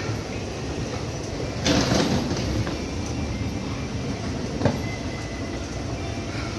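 Station up escalator running with a steady mechanical rumble, with a brief louder rush of noise about two seconds in and a single sharp click a little later.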